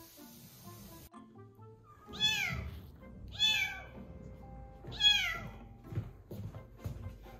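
Young kitten meowing three times, about a second apart, each a short high mew that rises and then falls in pitch; the last is the loudest. Soft background music plays underneath.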